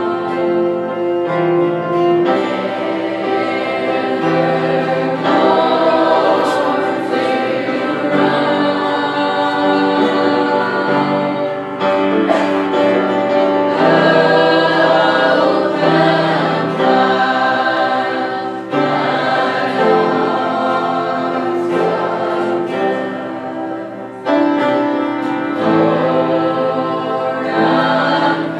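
Church choir and congregation singing a slow gospel hymn in long held notes, the invitation song during an altar call.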